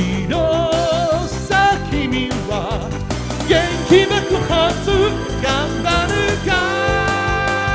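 Upbeat anime-pop backing track in its closing section: a melody line with vibrato over drums, settling into a long held chord about six and a half seconds in.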